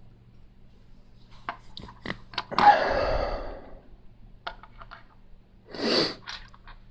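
Plastic Lego bricks being handled: scattered small clicks, a louder clatter about two and a half seconds in that dies away over about a second, and a short rustle near the end.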